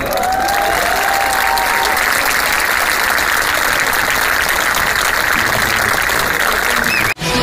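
Audience applauding, with a few cheering voices in the first couple of seconds. The applause cuts off suddenly near the end.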